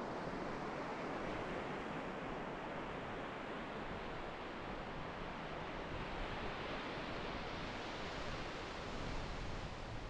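Ocean surf washing onto a sandy beach, a steady rush of breaking waves that swells a little brighter for a few seconds toward the end.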